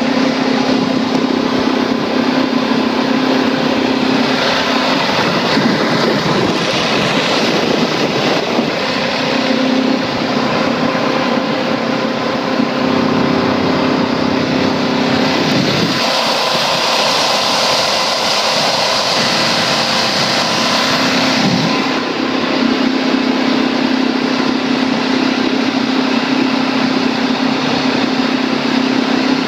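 Motorboat engine running steadily under way, its even drone mixed with a loud rush of wind and water. Midway through, for about six seconds, the drone drops back behind a stronger, hissier rush of noise before it returns.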